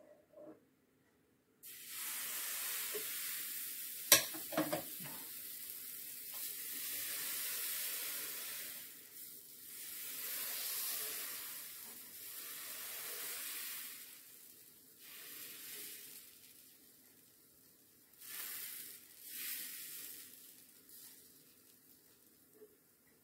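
Crêpe batter sizzling on the hot plate of an electric crêpe maker as it is poured and spread thin. The hiss starts suddenly, then swells and fades several times, and there is a single sharp knock about four seconds in.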